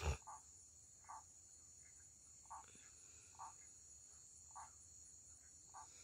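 Faint night chorus: a steady high-pitched insect drone of crickets, with short lower chirps repeating about once a second. A brief knock at the very start.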